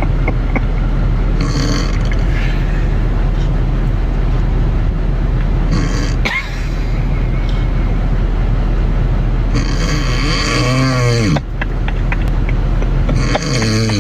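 A person snoring loudly: rough, rattling breaths about every four seconds over a steady low rumble. Near the end, a breath carries a voice-like tone that bends down and then up.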